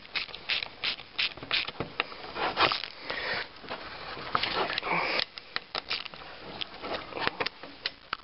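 Hand ratchet clicking in irregular short runs as the bolts fastening the fan to a new fan clutch hub are run down and snugged.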